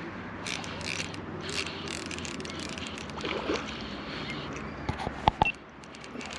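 Baitcasting reel being cranked, its gears whirring and clicking as a pike is reeled in on the line, with a few sharp clicks about five seconds in.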